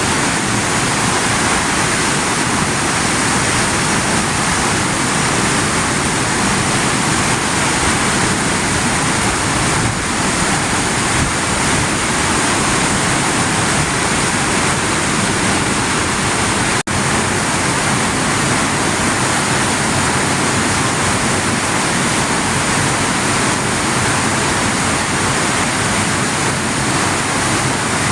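Steady loud rush of fast-flowing river water, with no change except a momentary dropout about seventeen seconds in.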